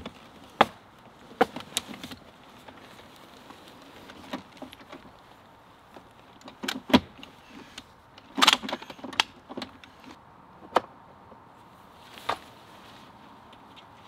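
Scattered clicks, knocks and clatter of a hard-shell rooftop tent being set up: its telescoping aluminium ladder and shell hardware being handled, with a busier run of clatter a little past the middle.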